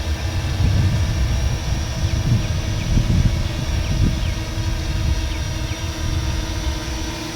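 Parrot Anafi quadcopter's propellers humming steadily in flight, over a gusty low rumble of wind on the microphone.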